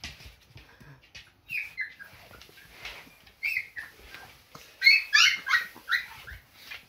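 Husky puppies squealing in short, high, falling whimpers: one about a second and a half in, another about two seconds later, then a quick run of louder ones about five seconds in.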